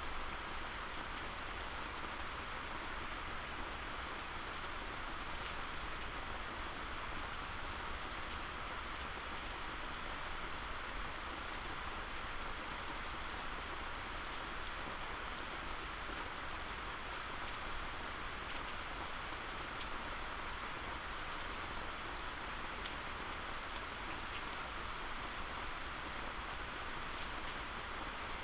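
Steady rain falling, with a dense patter of drops on a surface.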